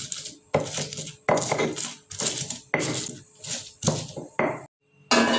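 Spice paste being ground by hand with a mortar and pestle: a series of about seven separate grinding strokes, each about half a second long, at an even, unhurried pace.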